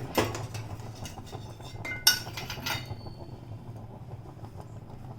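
Metal kitchen utensils clinking against pans or bowls, with one sharp clink about two seconds in that rings briefly, over a low steady hum.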